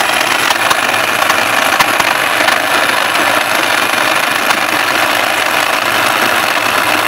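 Lenoxx mini food processor's electric motor running at full speed, its blade chopping chunks of sausage and stewed beef in the plastic bowl: one steady, loud run with no break. After a year of use it still runs strong.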